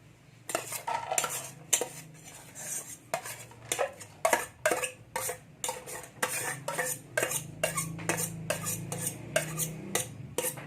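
A kitchen utensil repeatedly clinking and scraping against a bowl: many short sharp clicks, about two or three a second, over a faint steady low hum.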